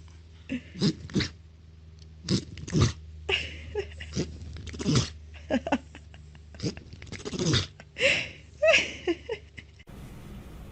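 A pet sneezing over and over: more than a dozen short, sharp sneezes in quick succession, a few with a brief squeaky pitch to them.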